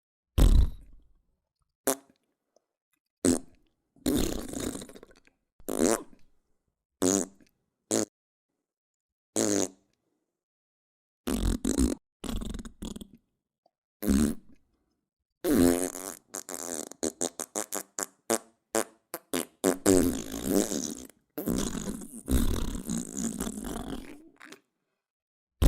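A string of fart sound effects: short separate farts with pauses between them, then from about halfway a fast sputtering run of many quick farts and several longer, drawn-out ones.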